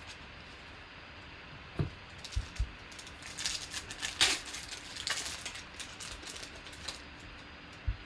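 Trading cards being handled: cards sliding and flicking against one another in a crisp rustle, with a few soft knocks around it.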